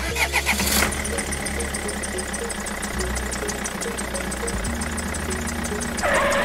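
Small motor of a DIY mini tractor running steadily with a fast, even ticking chatter. A louder rush of noise starts near the end.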